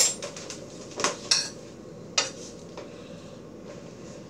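A metal spoon clinking against a stainless steel sauté pan, four sharp clinks in the first couple of seconds, while the butter sauce is tasted.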